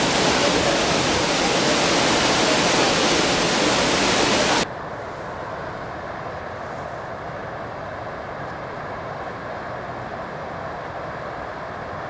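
Steady rushing roar of a tall waterfall that cuts off abruptly about four and a half seconds in, giving way to a quieter, duller rush of water spilling over rock ledges.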